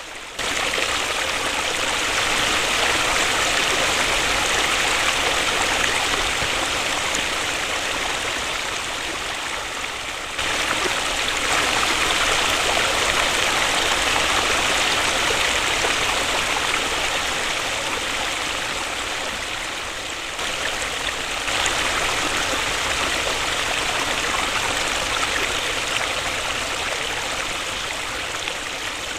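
Waterfall: a steady rush of falling water, with sudden jumps in level about every ten seconds, each slowly fading.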